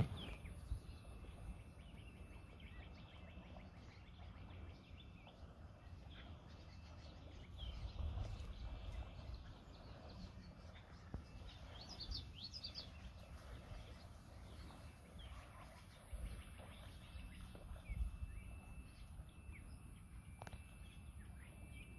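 Riverside ambience: birds chirping now and then, with a quick cluster of chirps about halfway through, over a low, uneven rumble.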